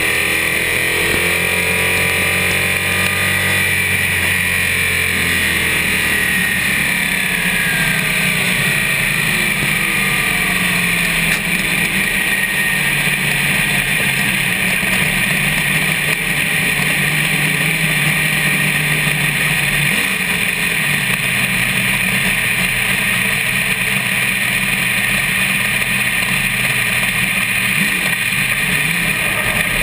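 Race car engine running at speed on track, heard from the front suspension over a steady rushing noise. Its pitch slides up and down and then shifts between levels a few times as the car laps.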